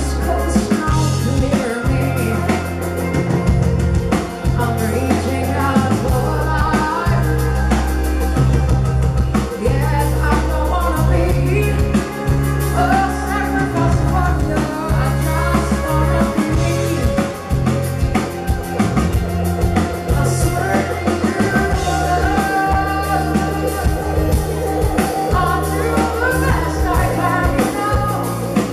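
A woman singing lead vocals with a live pop-rock band, with drum kit and held low bass notes under the voice.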